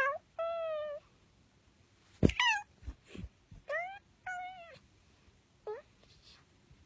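A tabby-and-white kitten meowing repeatedly, about six short high-pitched mews, some rising then falling. A single sharp knock comes just before the third mew, about two seconds in.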